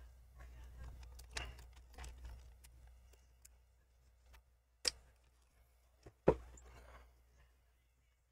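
Faint handling noise and light clicks of small metal parts being worked into place inside an opened laptop, with two sharper clicks about five and six seconds in, the second the loudest.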